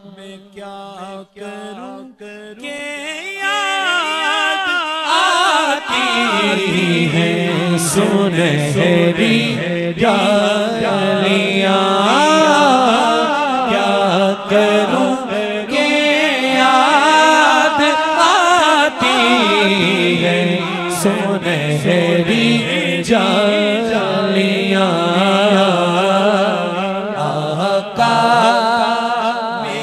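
A man singing an Urdu naat (devotional poem) solo into a microphone, his amplified voice holding long, wavering, ornamented notes over a steady low drone. It starts quiet and swells to full strength over the first few seconds.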